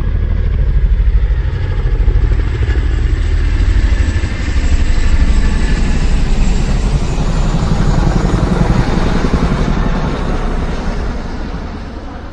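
A motor vehicle's engine running with a fast, even pulsing beat, swelling and dipping in loudness, then fading away near the end.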